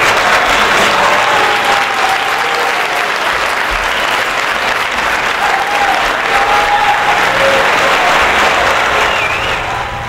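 Audience applauding loudly in a theatre, with a few voices calling out in the crowd; the clapping dies down near the end.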